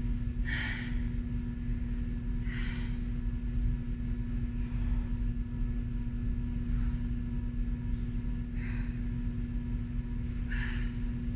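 A woman breathing hard through a steady low hum, with a heavy exhale about every two seconds as she catches her breath after a hard bout of exercise.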